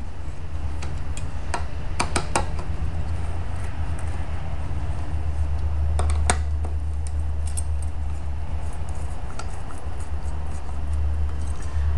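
Scattered light metallic clicks and clinks of a nut driver and screws on the metal top plate of a Fleck 5600 water softener control valve as the screws are backed out, over a steady low hum.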